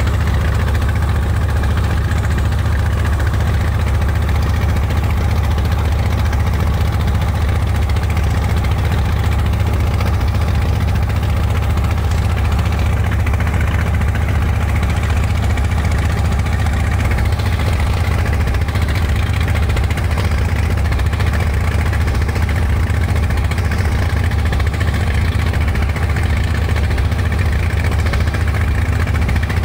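Inboard engine of a wooden motorboat running steadily under way, a constant low drone.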